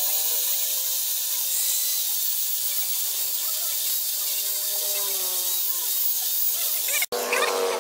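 Angle grinder with a sanding disc on a rubber backing pad, sanding a wooden knife handle: a steady high hiss of abrasive on wood over the motor's wavering whine. It cuts off suddenly about seven seconds in.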